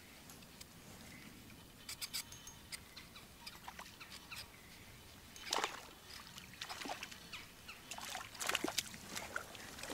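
Small crappie splashing at the water's surface as it is reeled in and landed, with scattered short splashes, drips and clicks.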